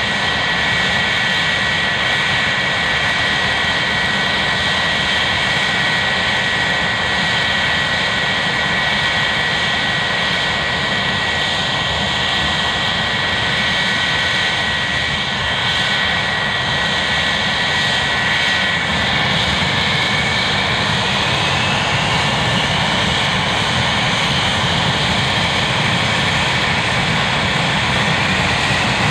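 English Electric Lightning F6 jet fighter's Rolls-Royce Avon turbojets running on the ground with the aircraft standing still: a steady high whine over a broad rumble. About two-thirds of the way through, a second whining tone starts and slowly rises in pitch.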